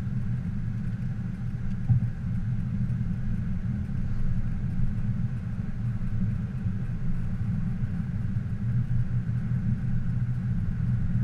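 2018 Lexus LS500 under way: a steady low rumble of road and drivetrain noise, with a faint steady higher hum above it.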